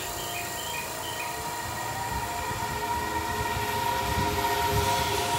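JR East EV-E301 battery-electric train pulling away, its Mitsubishi IGBT VVVF inverter giving a whine of several tones that rise slightly in pitch as it speeds up. Low wheel rumble underneath, growing louder.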